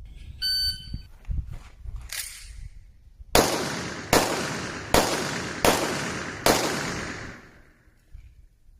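A short electronic beep, then a few faint knocks, then five handgun shots fired about three-quarters of a second apart, each ringing out with a long echo.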